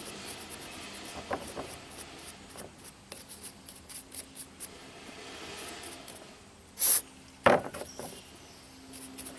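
Coarse bristle brush scrubbing the outside of a small-engine carburetor that has been wetted with carburetor cleaner, in short scratchy strokes. About seven seconds in there is a brief loud hiss, followed a moment later by a sharp knock.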